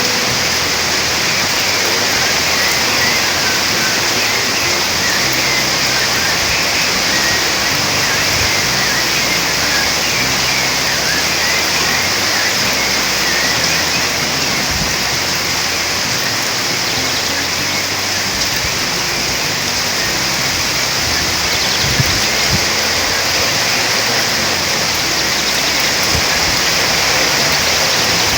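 Steady rain falling, an even hiss of drops, with faint bird chirps now and then during the first half.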